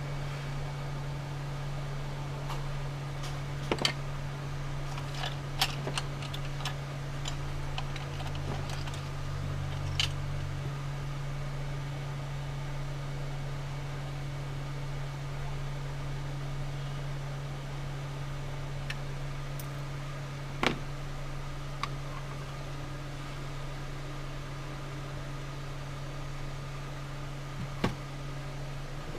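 A steady fan-like hum runs under a handful of sharp clicks and taps, the loudest about four, six, ten, twenty-one and twenty-eight seconds in.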